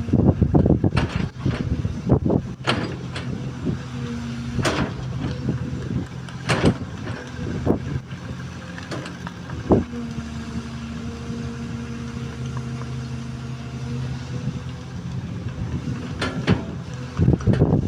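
Diesel engine of an XCMG XE215C excavator running steadily, with scattered sharp knocks and clatter over it, busiest in the first few seconds and again near the end.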